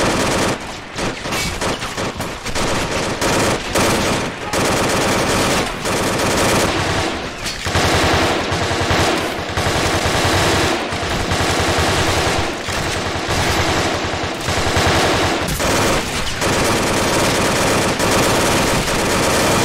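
Rapid automatic gunfire in long, sustained bursts, with single shots mixed in, like a firefight.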